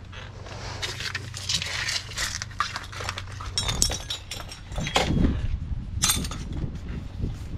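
Metal tools and parts clinking, knocking and rattling at irregular intervals as they are handled, with a few louder knocks past the middle and a low steady hum that fades out about halfway through.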